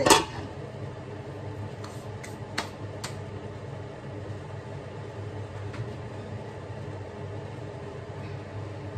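Aluminium lid set down on a frying pan with a sharp metallic clank, followed by the covered pan of adobo sauce heating on the hob: a steady low hum with a few light ticks in the first few seconds.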